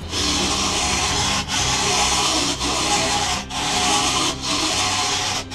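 Gouge chisel cutting a spinning wooden blank on a wood lathe during roughing: a steady scraping hiss, broken by short breaks about once a second as the tool is lifted and moved, over the lathe motor's low hum.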